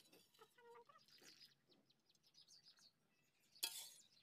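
Faint clucking of chickens, a few short calls in the first second and a half, over near silence. About three and a half seconds in comes one brief, louder noise.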